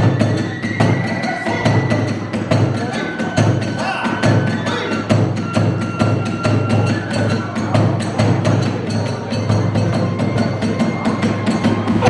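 Hiroshima kagura accompaniment at a fast tempo: a big taiko drum keeping a steady beat, small hand cymbals clashing rapidly, and a bamboo flute holding long high notes.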